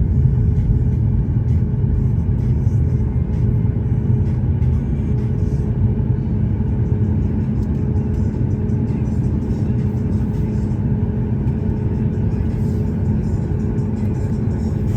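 Steady low rumble and engine hum inside the passenger cabin of a Boeing 737-8 MAX, its CFM LEAP-1B engines running at low power on the ground.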